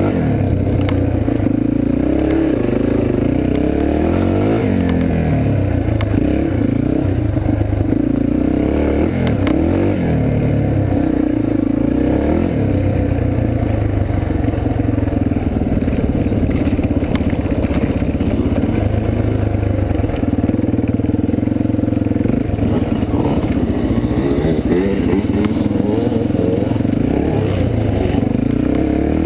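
Yamaha dirt bike engine heard close up from the bike, revving up and falling back again and again as it is ridden along a rough trail, with rattling from the bike over the bumps.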